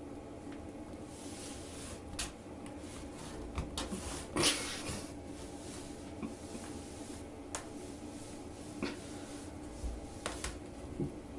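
Scattered light clicks, knocks and rubbing, like a cupboard or drawer being handled, over a steady low hum in a small room, with a louder rustle about four and a half seconds in.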